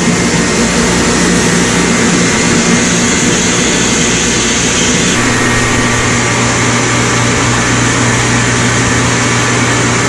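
Reverse osmosis machine concentrating maple sap, running with a steady pump hum and a rush of flowing liquid. About five seconds in, while its valve is being turned to raise the pressure, the hum shifts lower and the hiss eases.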